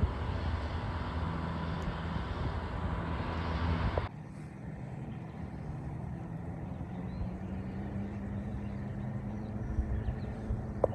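A vehicle engine running steadily under a rushing noise, cut off abruptly about four seconds in. After the cut comes a quieter steady low hum with a few faint bird chirps.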